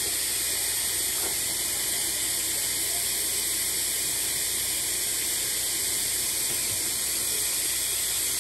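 Kitchen faucet running a steady stream into a stainless steel sink filling with water under a thick layer of bubble-bath foam: an even, unbroken hiss of running water.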